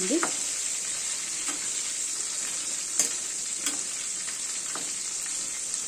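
Batter-coated green chillies (mirchi bajji) deep-frying in hot oil in a kadai: a steady sizzle with a few sharp pops, the loudest about three seconds in.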